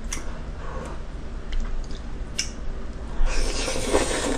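Eating jjajangmyeon: a few faint clicks of chopsticks against the bowl, then a loud slurp of noodles lasting about a second near the end.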